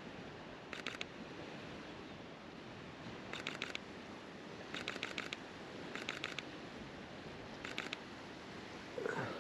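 Camera shutter firing in five short bursts of rapid clicks, continuous shooting at a bird in flight. A brief vocal sound near the end.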